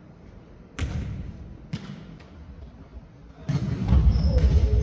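Jokgu ball being kicked and bouncing on a wooden gym floor: two sharp thumps about a second apart, then a louder low rumble of play and movement on the court for the last second and a half.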